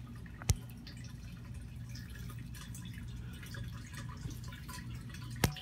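Water trickling and dripping into a septic tank from the sewer main, heard down the opened inspection pipe; the flow is garden-hose water pushed through the main and shows the pipe is clear and draining. Two sharp clicks, about half a second in and near the end.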